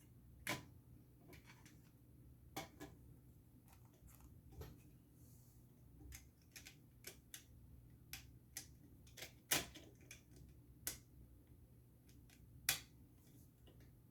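Plastic LEGO bricks being handled and snapped together: scattered sharp clicks at uneven intervals, a few louder snaps among lighter taps.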